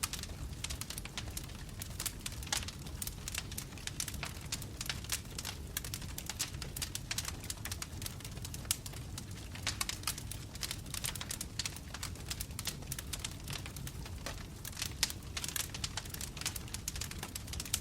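Wood fire burning in a fireplace, logs crackling with many small irregular pops over a steady low rumble of the flames.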